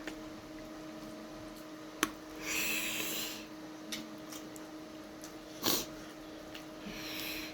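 Eating sounds close to the microphone: a sharp click about two seconds in and two short airy hisses, one soon after the click and one near the end, over a steady hum.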